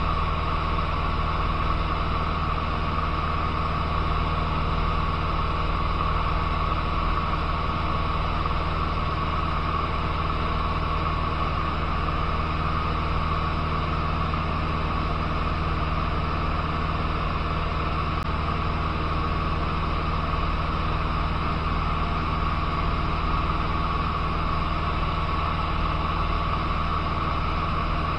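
Cessna 150's Continental O-200 four-cylinder engine and propeller droning steadily in flight, heard inside the cockpit together with the hiss of airflow over the cabin.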